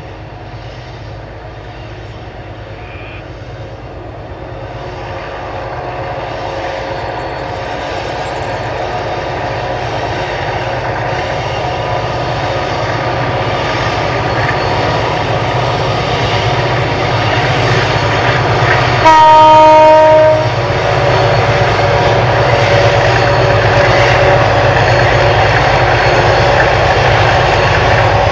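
EMD- and ALCO-engined diesel locomotives working hard as they haul a loaded grain train upgrade, their engine drone growing louder as they draw near. About two-thirds of the way through, a locomotive horn gives one steady blast of a second and a half, the loudest sound.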